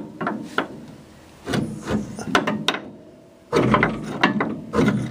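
Steel jack handle levering and scraping against a car's front coil spring inside the spring tower: a string of metallic clicks and scrapes, a short pause just past the middle, then a louder run of clanking knocks.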